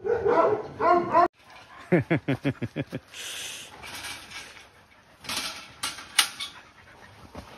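Siberian huskies vocalizing: after a short two-part call, a quick run of about eight yelps, each falling in pitch. Scuffling and scattered knocks from the dogs moving about follow.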